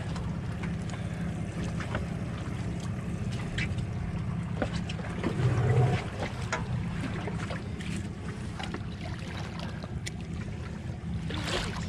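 Boat engine idling with a steady low hum, with scattered small splashes and knocks of water at the hull and a brief louder low swell about halfway.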